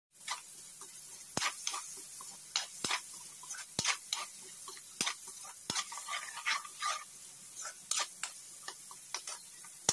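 Diced vegetables sizzling in hot oil in a wok while a spatula stirs them, with a steady hiss and irregular sharp clicks and scrapes of the spatula against the pan.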